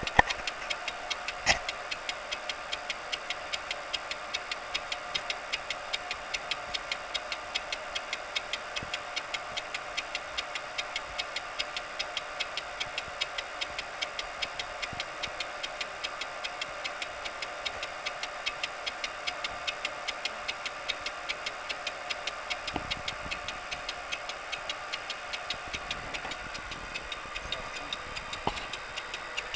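Metal lathe turning a cast plummer block base, the cutting tool ticking against the casting in an even rhythm of about two or three ticks a second, once per turn: an interrupted cut on an uneven, off-square casting. A steady high whine sounds under the ticks.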